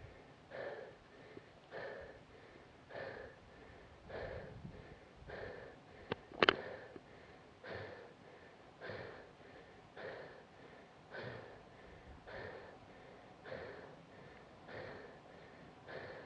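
A cyclist's heavy, rhythmic breathing while climbing a steep road, a hard breath about every second and a bit, the sound of sustained uphill effort. About six seconds in, a sharp click and then a louder one cut through.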